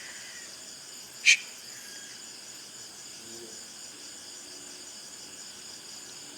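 Steady chirring of crickets and other night insects, with one short, sharp sound a little over a second in that stands out loud above them.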